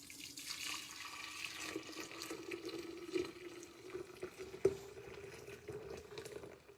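Hot cooked eggnog poured from the cooking pot into a pitcher: a steady stream of liquid whose pitch rises slowly as the pitcher fills.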